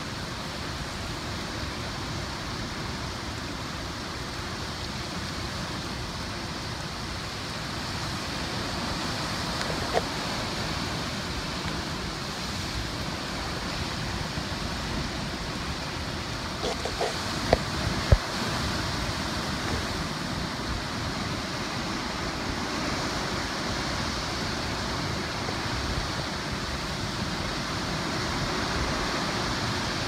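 Hurricane wind and driving rain blowing steadily, the gusts hitting the microphone, growing a little stronger partway through. A few sharp knocks stand out, one about ten seconds in and a cluster around seventeen to eighteen seconds.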